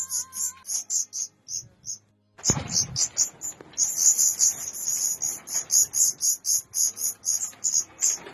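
Young songbirds begging with rapid high chirps, several a second, as a parent bird comes to feed them. The calls break off briefly about two seconds in, and a short thump follows just after; a faint tune fades out in the first second.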